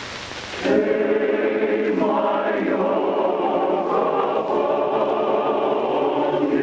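A choir singing held chords, coming in just under a second in after a moment of hiss, with the voices shifting to new notes about two seconds in.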